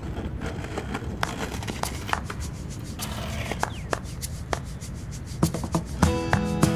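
Skateboard rolling on concrete: a low, steady rumble from the wheels with sharp clicks scattered through it. About six seconds in, hand strikes on a wooden cajon and guitar notes begin.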